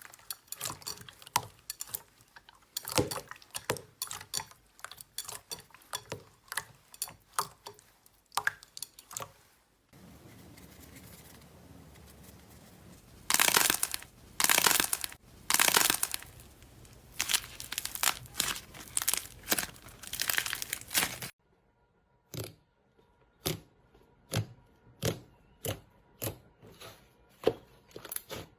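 Slime being squeezed and worked by hand: an irregular run of quick wet clicks, pops and crackles, in several separate takes that change abruptly.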